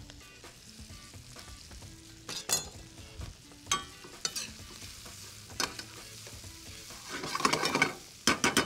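Crumbled Italian sausage and onion sizzling in olive oil in a stainless steel pan, with a utensil scraping and clacking against the pan as it is stirred. The stirring clatter grows louder and busier near the end.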